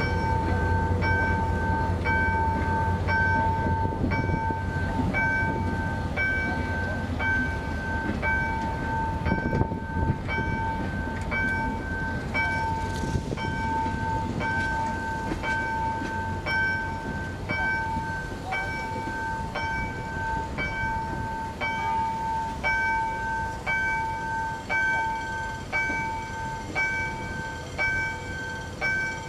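Railway level-crossing warning bell ringing in steady, evenly repeated dings while a passenger train rolls past, its low rumble fading away.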